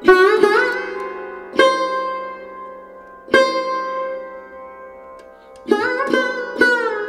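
Background music: a plucked string instrument playing slow, ringing single notes that bend in pitch over a steady drone, with a quicker run of notes near the end.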